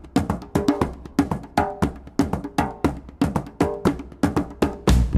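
Background music: a light tune of short, evenly spaced percussive notes, about four a second. A heavy bass and fuller backing come in near the end.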